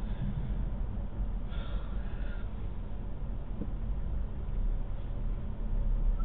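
VW Golf Mk7 running, a steady low rumble, with a brief higher-pitched squeak about a second and a half in.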